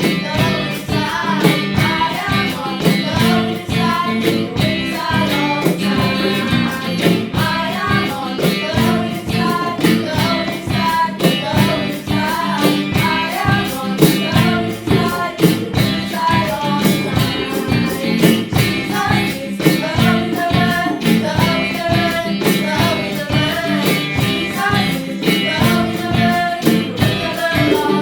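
Song with singing over instrumental backing and a steady beat.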